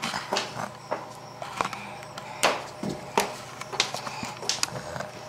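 Scattered light clicks and knocks at uneven intervals, the loudest about halfway through, over a faint steady low hum.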